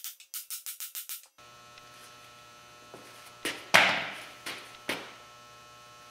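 Background music with a quick ticking beat stops about a second in, giving way to a steady electrical hum in the shop. Then come three ringing metal clanks on the steel engine stand as its welded bracket is worked loose, the first one the loudest.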